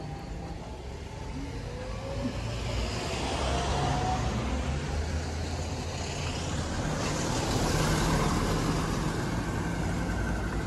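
Steady low rumble of an idling truck engine, mixed with the hum of road traffic passing.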